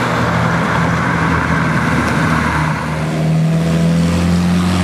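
A motor vehicle engine running close by with a steady low hum, over general street traffic noise.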